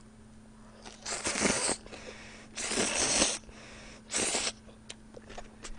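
A person slurping stir-fried instant noodles into the mouth three times, each a short hissing suck of about half a second.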